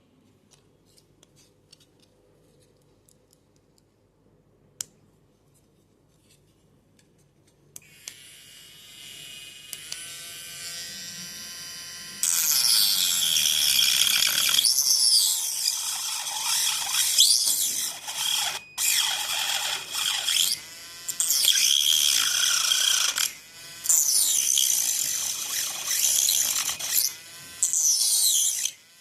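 Faint clicks, then a mini grinder's motor switches on about eight seconds in with a rising whine. From about twelve seconds its cutting disc grinds into plastic in repeated loud passes, broken by short pauses.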